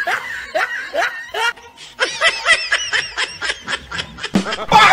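Human laughter: a few short rising giggles, then from about two seconds in a fast run of ha-ha pulses, loudest near the end.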